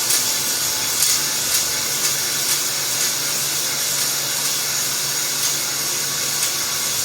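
Battery drill running slowly in first speed on a low battery, spinning an oiled stone cylinder hone inside the cylinder bore of a 6.0 LS LQ9 V8 block. It makes a steady grinding hiss with a low motor hum, and light clicks about once a second as the hone is worked up and down the bore.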